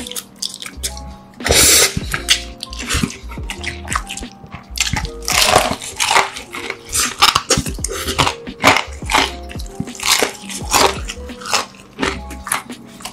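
Close-miked eating: a loud slurp of saucy instant noodles about a second and a half in, then bites and wet, smacking chewing of crispy fried chicken, over background music with a steady bass.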